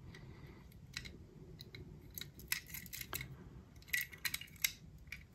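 Faint, scattered clicks and taps of a small die-cast toy car being handled and turned over in the fingers, over low room tone.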